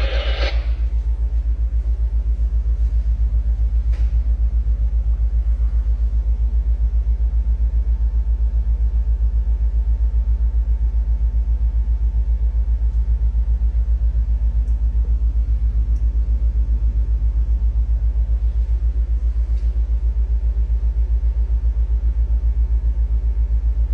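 Ship's diesel machinery running, heard on deck as a steady, deep rumble with an even fast pulse. A faint thin steady tone rides over it for several seconds in the middle.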